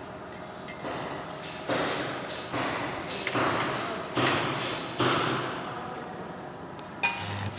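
A series of sharp knocks, about one every 0.8 seconds, each trailing off over most of a second, followed by a single sharp click near the end.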